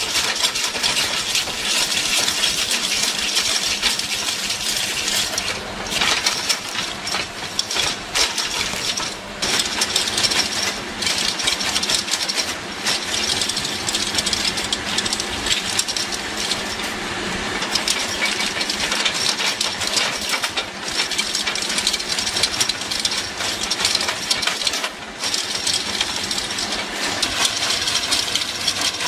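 Forestry tree-shredding machine grinding wood: a continuous, loud crackling and rattling of splintering wood over the running machine, with a few brief dips.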